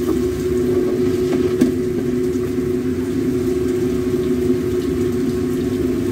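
Steady low mechanical hum of a running motor, holding two low tones without change, with a faint click or two.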